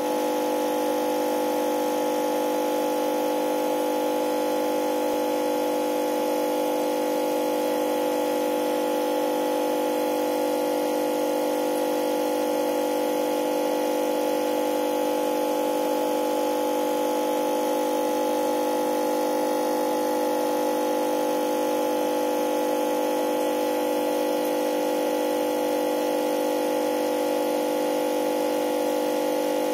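Aquarium air pump humming steadily, a constant drone of several held tones that does not change.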